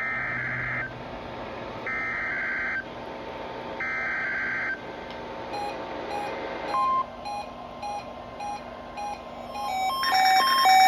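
Emergency Alert System SAME header on NOAA Weather Radio: three short bursts of warbling digital data tones about two seconds apart, marking the start of the Required Weekly Test. From about halfway in, a run of short electronic beeps on a few pitches repeats, growing denser and louder near the end.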